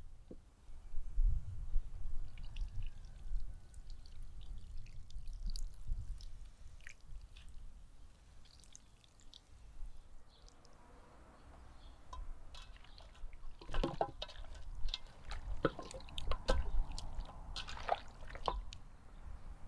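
Liquid wrung from a cheesecloth bundle trickling and dripping into a bowl of raw chicken pieces. In the second half come wet squelches and clicks as hands massage the raw chicken drumsticks and wings.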